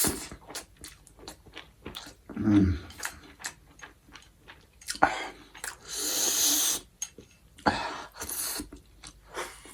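Close-up mouth sounds of someone eating spicy instant noodles with egg: wet chewing and many short lip-smacking clicks, with a longer hissing sound about six seconds in.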